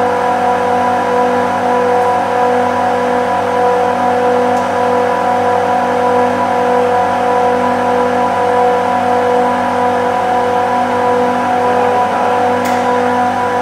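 Bank of screw compressors running, a steady, even machine hum with a constant pitched whine. A single sharp click sounds near the end.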